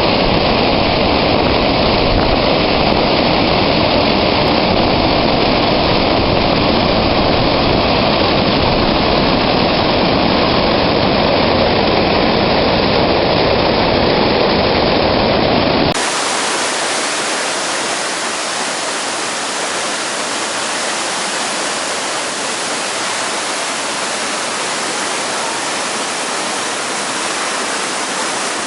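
Floodwater pouring through a cave, most likely its waterfall in spate: a loud, steady rush of water. About fifteen seconds in the sound changes abruptly, losing its deep rumble and turning thinner and hissier.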